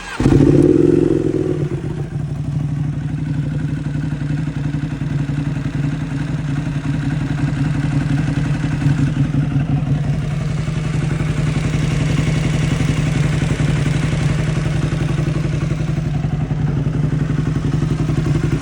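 Motorcycle engine starting up and then idling steadily, with a fast, even ticking clatter running through the idle. The owner calls the ticking a new noise that gets louder every day, on a bike with nearly 28,000 hard miles.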